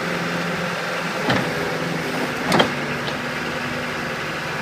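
Caterpillar 277B compact track loader's diesel engine running smoothly at a steady speed, with two short sharp clicks about a second and two and a half seconds in, the second louder.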